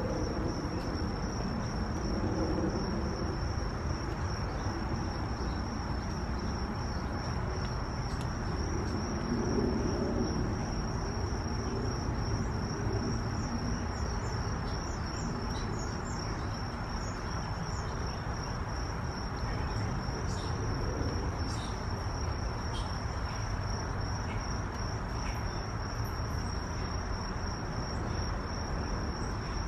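An insect trilling steadily at one high pitch, unbroken throughout, over a low steady outdoor rumble.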